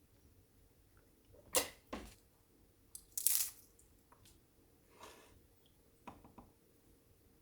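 Small objects being handled in a room: a few light clicks and knocks, with a short rustling scrape a little over three seconds in.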